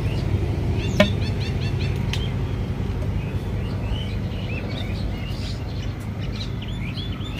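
Small birds chirping, with a quick run of repeated chirps just after a second in and scattered calls after, over a steady low background rumble; a single sharp click sounds about a second in.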